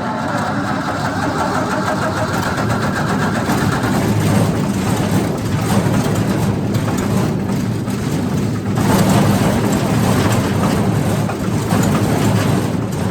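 Wood chipper's engine running unevenly just after catching, without coming up to full speed; the owner suspects fuel is not reaching the carburetor.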